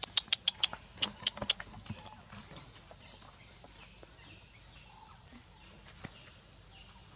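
Animal calls in the trees: a quick run of about eight short, sharp, high chirps over the first second and a half, then a single higher chirp about three seconds in. A steady high-pitched drone runs underneath.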